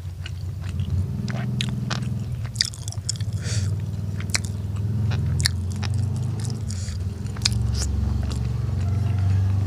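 Close-miked chewing and biting of food, with heavy low mouth sounds and scattered sharp crunching clicks.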